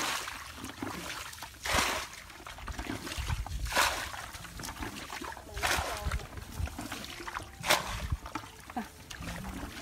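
Muddy water splashing in short bursts, about one every two seconds, as hands scoop and dig in a shallow rice-field puddle to catch fish.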